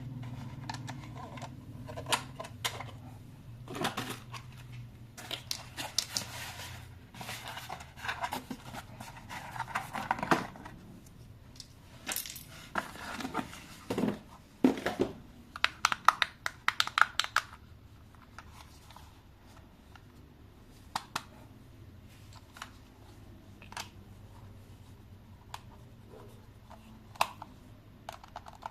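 Hands handling toy packaging: rustling plastic and cardboard with scattered clicks and taps, including a quick run of clicks a little past the middle.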